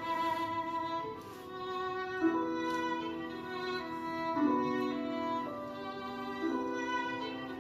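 Slow instrumental music led by a bowed violin, playing long held notes that change about every two seconds.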